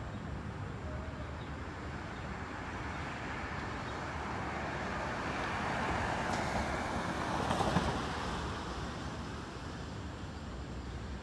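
A vehicle passing on the street over steady traffic noise, its sound swelling to a peak a little past halfway and then fading away.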